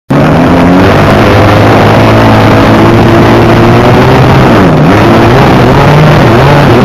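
Loud, steady running of a model aircraft's motor heard up close through the onboard camera. Its pitch wavers, with a brief dip and recovery nearly five seconds in.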